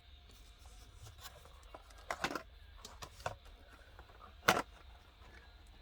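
Hands handling a carded diecast toy car in its plastic blister pack: a few scattered clicks and light crackles, with one sharp click about four and a half seconds in.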